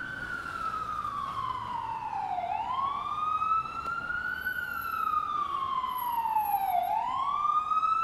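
Emergency-vehicle siren on its wail: one tone sliding slowly down and back up, about two full sweeps, each taking roughly four and a half seconds.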